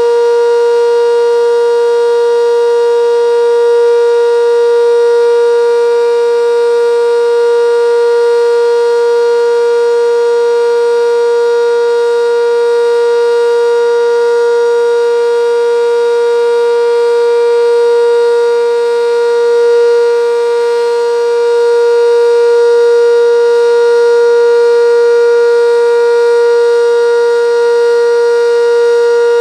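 Sentry 10V outdoor warning siren sounding a steady Alert tone for its monthly test: one unwavering pitch held throughout, with a slight dip in loudness about twenty seconds in.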